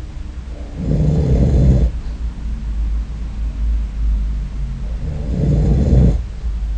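A man snoring in his sleep, recorded on a snore-recording app: two long, heavy, rasping snores about four seconds apart, the first about a second in and the second near the end, over a constant low rumble.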